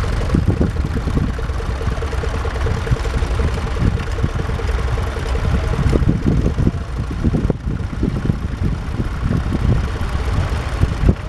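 Standard Fordson tractor's four-cylinder engine running steadily with a low rumble. A thin steady note over the engine fades out after about four seconds.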